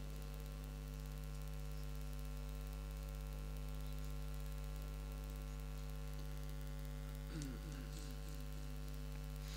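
Steady electrical mains hum from a microphone and sound-system line, with no recitation. A faint, brief voice is heard about seven seconds in.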